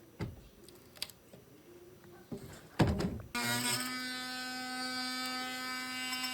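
A few knocks of handling, then about halfway in an electric power tool's motor starts and runs at a steady, unchanging pitch with a high whine.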